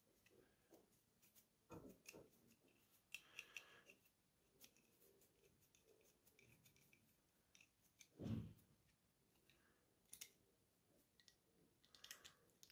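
Faint clicks and small scrapes of an Allen key turning a screw inside a metal window security lock, tightening it to reseat the lock's loose top part, with a low thump about eight seconds in.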